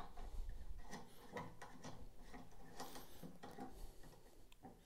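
Faint, irregular clicks and short scrapes of a hand twisting the dust cap off a Skywatcher 200PDS telescope's 2-inch focuser.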